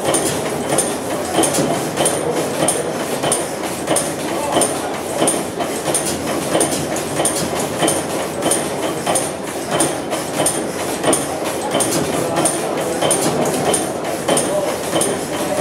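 Deutz type A horizontal stationary gas engine running at a steady pace. Its crosshead and valve gear make an even mechanical clatter, with a sharp click about three times every two seconds.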